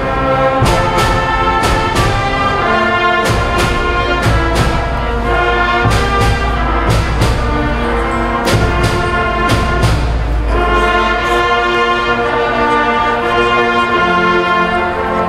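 A school concert band playing: brass and woodwinds holding chords over regular drum strokes, moving to a new chord about ten seconds in.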